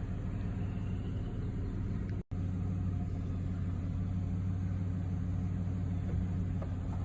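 Steady low hum of a running engine, dropping out for an instant about two seconds in.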